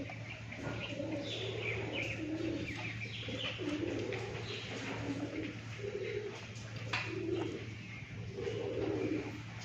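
Birds cooing over and over in short low phrases, with higher chirps of small birds mixed in, over a steady low hum.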